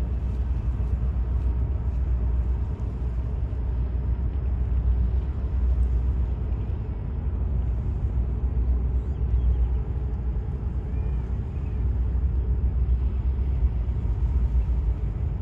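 Tugboat's diesel engine running with a steady, unbroken low rumble as the boat works alongside a ship.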